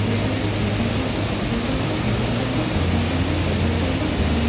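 Steady rushing of the Jägala waterfall's water falling close by, an even noise with no breaks.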